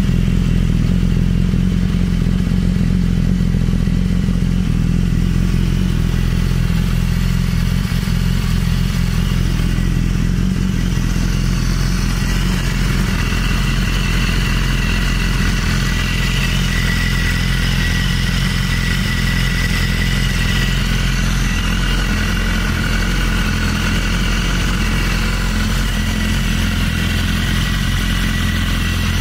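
BMW S1000RR's inline-four engine idling steadily through an Akrapovic exhaust, with no revving.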